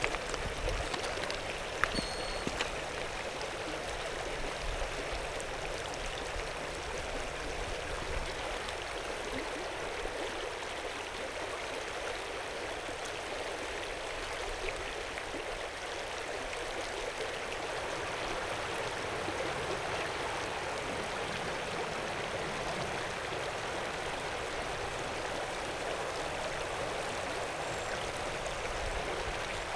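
Yampa River water flowing in a steady rush, with a couple of faint clicks in the first few seconds.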